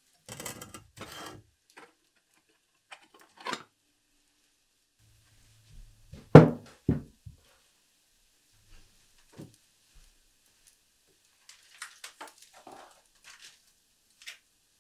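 Handling sounds at a wood-fired masonry stove: short scrapes and clanks as its cast-iron fire doors are worked open, then scattered knocks. One heavy thunk about six seconds in is the loudest sound, followed by a second, lighter one, and there are light clicks near the end.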